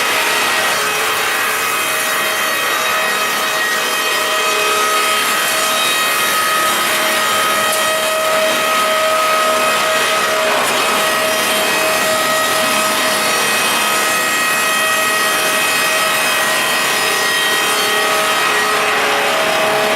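SPB-8-2 pulpwood-processing machine sawing wood: a steady, even cutting noise over a constant machine whine.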